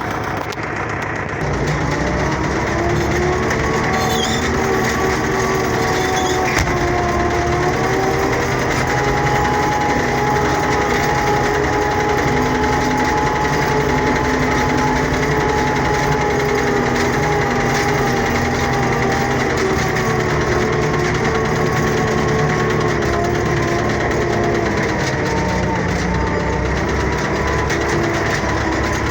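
Tractor engine running steadily under load while working a field, its pitch drifting slightly up and down; it gets louder about a second and a half in.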